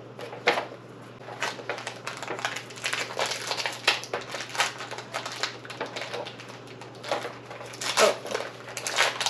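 Foil trading-card booster pack wrapper crinkling and tearing as it is handled and pulled open by hand: an irregular run of short crackles.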